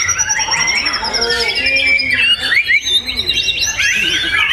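A songbird singing a loud, varied song of quick whistles, chirps and trills, with a long falling trill in the first half.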